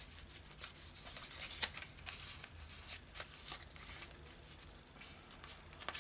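Paper and card being handled: a run of light rustles and ticks, with one sharper tick about a second and a half in.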